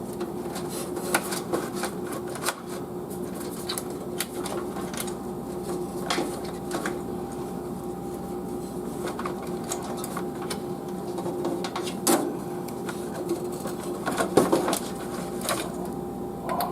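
A plastic case fan being handled and fitted into a metal computer case: scattered clicks, taps and knocks, with a small cluster of louder knocks about twelve seconds in and again a couple of seconds later.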